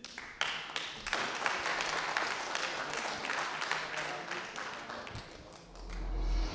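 Small audience applauding, a spread of many separate claps that dies away after about five seconds. A low rumble swells near the end.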